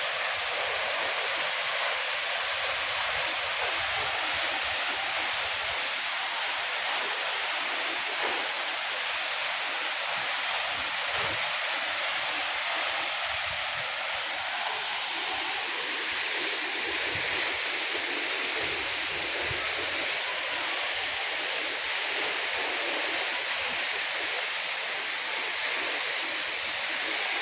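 Waterfall's steady rush of falling water, an even hiss that holds level throughout.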